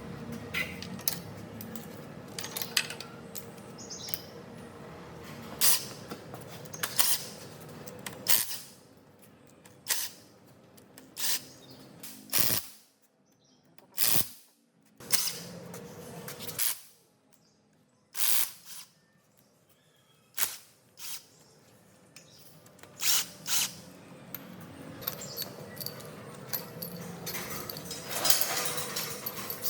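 A power tool run in many short bursts, each well under a second, with uneven pauses between, over a faint steady hum.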